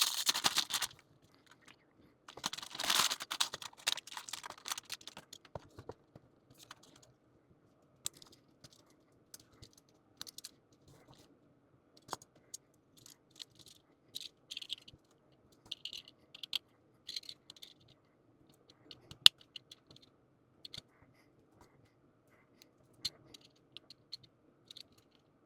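Small plastic model-kit parts being handled and snapped together: scattered light clicks and taps, with a couple of short stretches of rustling near the start.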